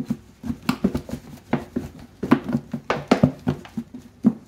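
Pork chops being shaken with flour in a lidded plastic food container to coat them: an irregular run of knocks and thuds, about three a second, as the chops hit the container's sides.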